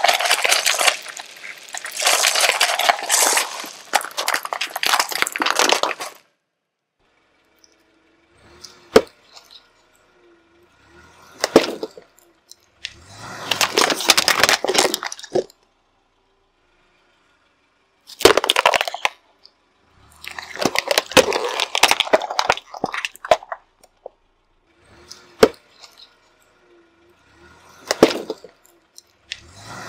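Car tyre rolling over plastic cups of candy-coated chocolates: a dense crackle of snapping plastic and crunching sweets for the first six seconds or so. After a silent gap come separate sharp cracks and short bursts of crackling, with silences between them, as the tyre crushes plastic tubs of slime.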